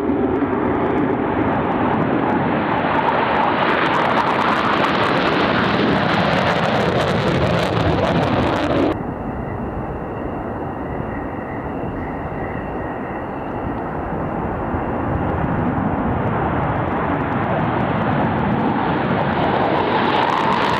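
Panavia Tornado's twin RB199 turbofans at take-off power, a loud steady jet noise as the aircraft accelerates down the runway. About nine seconds in it cuts to a quieter run with a high steady whine, which builds again toward the end as the next Tornado speeds up and lifts off.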